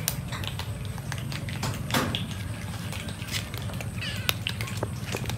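Several cats crunching dry kibble, with many quick irregular crunches. One cat meows about four seconds in. A steady low hum runs underneath.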